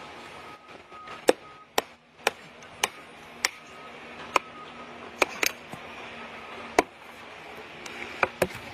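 Axe chopping into wood: about a dozen sharp single blows, at first roughly two a second, then spaced more irregularly, with two quick strokes near the end.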